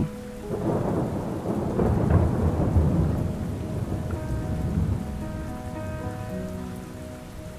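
Steady rain with a long rolling rumble of thunder that swells in the first few seconds and dies away; soft held notes of background music come in after about four seconds.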